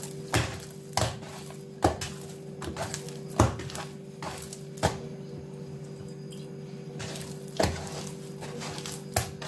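Soft, wet yeast dough for sfenj being beaten by hand against a woven wooden bowl: sharp wet slaps roughly once a second, with a pause of about two seconds in the middle. A steady low hum runs underneath.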